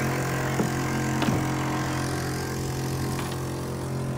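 A small engine running steadily at idle with an even hum, with two knocks from the camera being handled, about half a second and a second and a quarter in.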